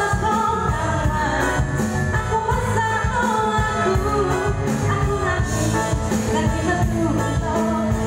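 A woman singing through a handheld microphone over a live band of electric guitar, keyboard and drums.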